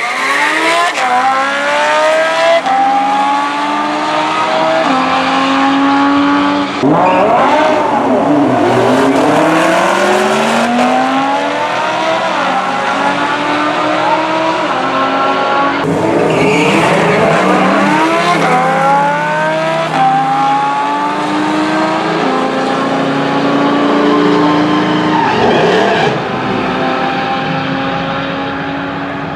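Lamborghini Huracán Spyder's naturally aspirated V10 accelerating hard through the gears, its note climbing steadily and dropping back sharply at each upshift, over several pulls one after another.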